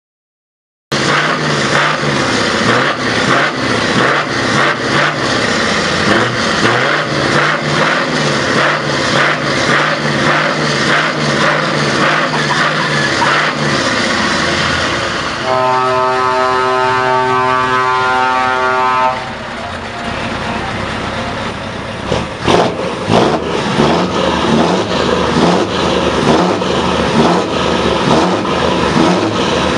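Scania R520's 16-litre V8 engine running loudly through its exhaust, starting about a second in with an even, pulsing throb. About halfway through, a steady held note cuts in for roughly three and a half seconds, and after it come a few sharp cracks and less even running.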